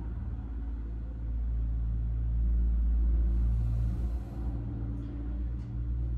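A low, steady rumble with a hum, much like an engine heard through walls. It swells to its loudest about halfway through and then eases off, with a brief hiss near the middle.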